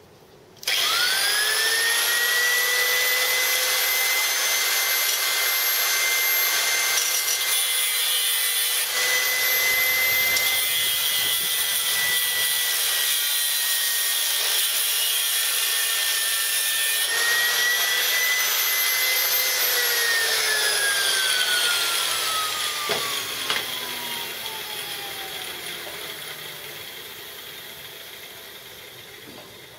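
Angle grinder started up, running at full speed and grinding through metal fixings, with louder grinding spells, to cut a motor loose. About two-thirds of the way through it is switched off and winds down with a long falling whine, with a single knock as it slows.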